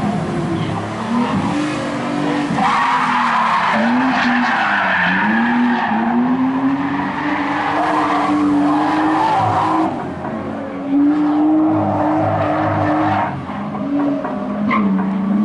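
BMW E36 3 Series race car's engine revving up and falling back over and over as it is driven hard through corners, its tyres skidding and squealing on the track surface.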